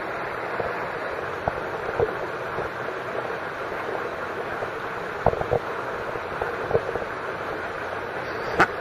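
Water splashing: a steady rushing wash broken by a few short splashes, the sharpest near the end.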